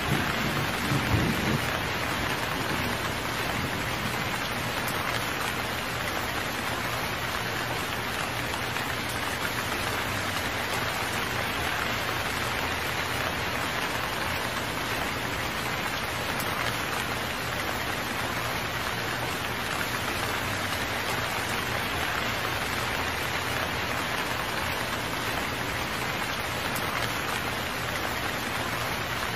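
Steady, even rain falling, with a short low rumble of thunder in the first second or so.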